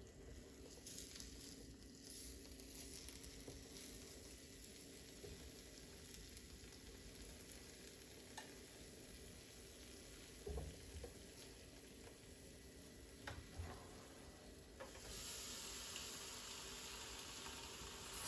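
Marinated chicken pieces sizzling faintly on an electric contact grill, with a few light taps of the basting brush against the plates. About fifteen seconds in, the sizzle gets louder as the grill's lid comes down on the meat.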